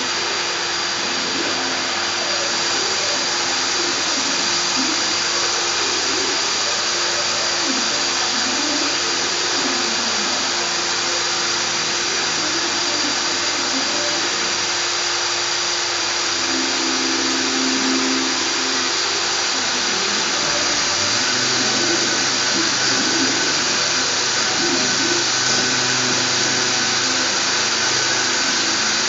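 Gottschild HBS 2600 automatic sanding and polishing machine running: a steady whirring hiss with a thin high whine over it. About two-thirds of the way through, a lower hum joins in.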